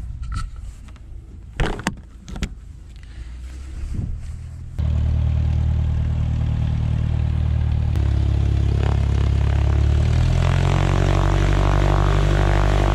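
A few knocks and clatters, then about five seconds in a small plane's piston engine and propeller come in loud and steady as a high-wing Cessna taxis up, the drone shifting in pitch a couple of times.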